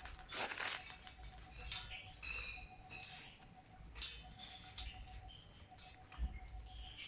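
Irregular light scraping, squeaks and clicks of hand work on the rusty dish rack, with one sharper click about four seconds in.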